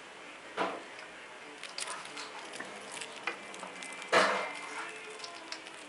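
Scattered light clicks and crackles of a chipmunk handling food at the bars of its wire cage, with one louder knock about four seconds in.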